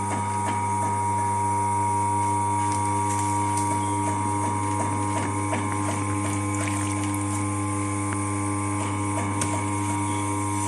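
Electric potter's wheel motor humming steadily as the wheel head spins, with a few faint clicks and scrapes from the clay work.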